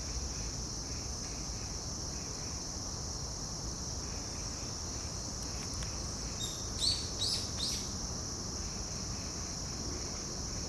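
A steady, high-pitched chorus of crickets trilling, over a low rumble of wind on the microphone. About two-thirds of the way through, a bird gives three quick chirps, each falling in pitch.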